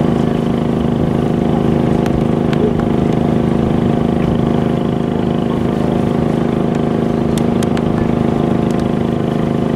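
Boat engine running at a steady drone, heard from on board.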